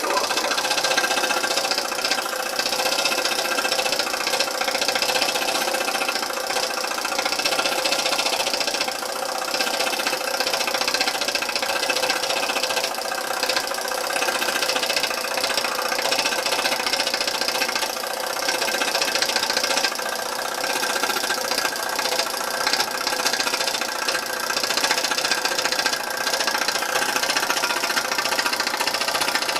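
Small Stuart ST model steam engine running steadily under steam from its Stuart boiler.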